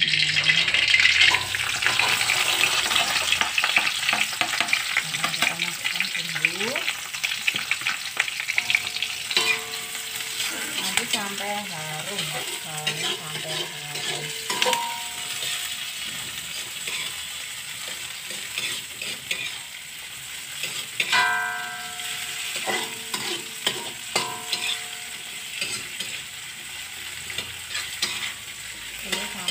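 Chopped shallots, garlic, chilies and tomato sizzling in hot oil in an aluminium wok while a spatula stirs and scrapes them, the first stage of frying the spice base. The sizzle starts suddenly as the aromatics hit the oil, is loudest in the first couple of seconds and then settles, with the spatula's scrapes and knocks against the wok throughout.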